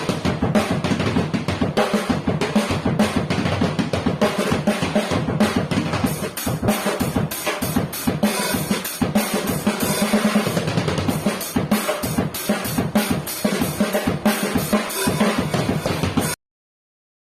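Tajon Master FSA Plus drum kit, with a 14-inch bass drum, 10-inch snare, 8- and 10-inch toms and original FSA coated heads, played as a continuous groove and picked up by a phone's microphone. The playing cuts off abruptly near the end.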